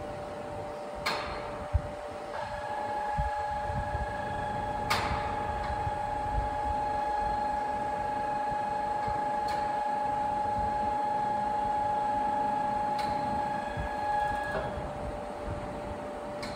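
1.2 MW Siemens asynchronous (induction) motor starting up through its start transformer, over a steady background hum. About two seconds in, a strong electrical whine comes in and the noise swells as the motor runs up; the whine cuts off suddenly near the end. A few sharp clacks come along the way.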